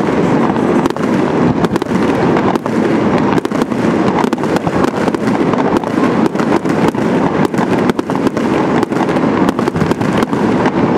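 Aerial fireworks display: a dense, unbroken run of shell bursts and crackling stars, several bangs a second.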